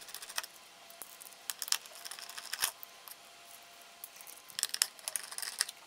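Faint scattered clicks and scrapes of a screwdriver turning small self-tapping screws out of a circuit board mounted in a plastic speaker housing.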